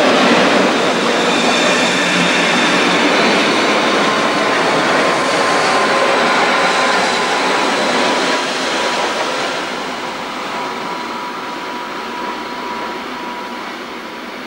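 A train headed by several ÖBB electric locomotives passing close by: a loud, steady rumble and rattle of wheels on rail, with a thin high steady whine over it. It eases off after about ten seconds as the train moves away.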